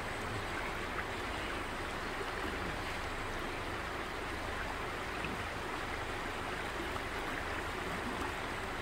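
Shallow river rippling steadily over a rocky bed.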